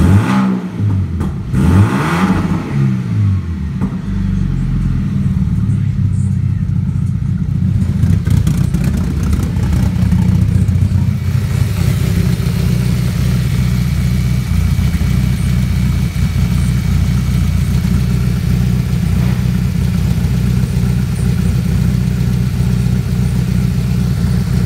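VW Passat B5's 2.0-litre four-cylinder petrol engine (ALT) revved up and back down twice in the first few seconds, then idling steadily.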